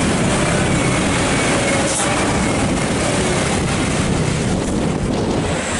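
Heavy truck engine running under load amid dense, steady road noise.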